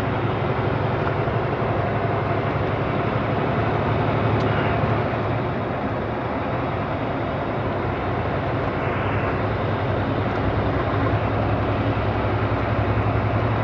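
Semi truck's diesel engine and road noise droning steadily in the cab while driving at highway speed.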